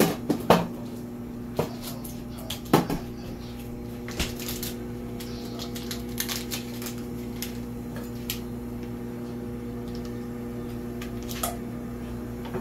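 Kitchen handling noises: a few sharp knocks and clicks, the loudest about half a second and nearly three seconds in, then a stretch of crinkling as a stick of butter is unwrapped. A steady electrical hum runs underneath.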